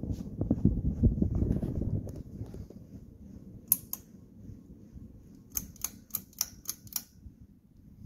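Hunter Hilmouth ceiling fan running, its blade wash buffeting the microphone as a low rumble for the first couple of seconds, then settling to a quieter hum. Sharp clicks cut in: a pair about midway, then a run of six, about three a second, near the end.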